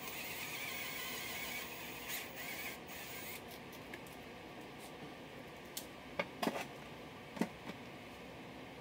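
Hands handling parts: a few seconds of rustling, then several sharp clicks and knocks of a plastic tray and small hard parts being moved about, bunched together about six to seven and a half seconds in.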